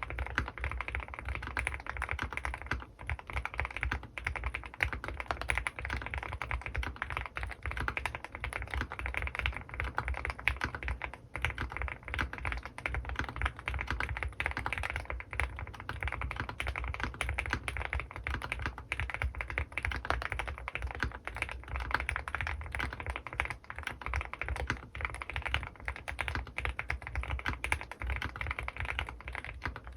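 Fast continuous typing on a custom mechanical keyboard with lubed Gateron North Pole linear switches (Krytox 107) and lubed TX stabilizers under GMK keycaps: a dense, steady stream of key strikes.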